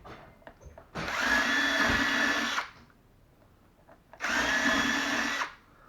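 Power drill running in two bursts, drilling the hardware holes in a wooden drawer front: a steady whine for under two seconds, a pause, then a second, shorter run, each cutting off sharply.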